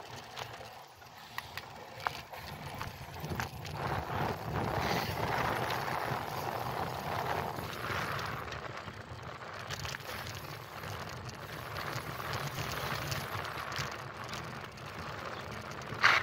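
Bicycle riding along a paved path: steady wind rush and tyre rolling noise that swells and eases, with a few sharp clicks about one and a half to two seconds in.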